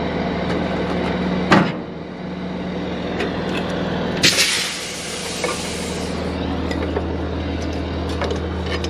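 Semi truck's diesel engine idling steadily, with a sharp clunk about a second and a half in and a loud hiss of released air about four seconds in that lasts a second or two.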